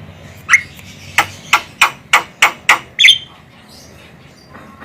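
Javan myna calling: a harsh note, then a run of six sharp clicking notes at about three a second, ending in another harsh call about three seconds in.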